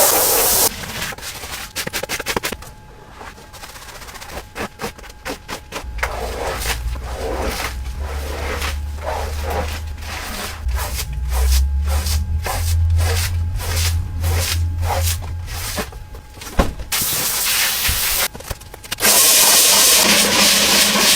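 Dirty carpet being cleaned, heard as a series of separate stages. There is a short burst of spraying hiss at the start, then quick rubbing and scrubbing strokes, then a cleaning machine's motor humming for about ten seconds with a slowly rising tone, and finally more long spraying hiss near the end.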